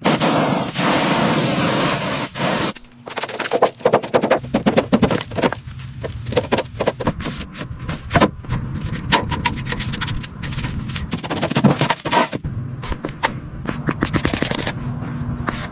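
Workshop tool noise: a steady harsh grinding or scraping noise for about two and a half seconds, then rapid, irregular clattering impacts like hammering or an air tool working on metal.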